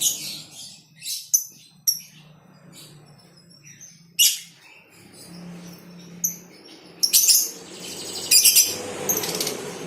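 Lovebirds calling in a colony cage: scattered sharp, shrill chirps, then a louder run of rapid chattering near the end.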